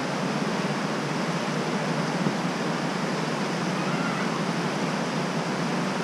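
Steady rush of water tumbling over the Krka River's travertine cascades.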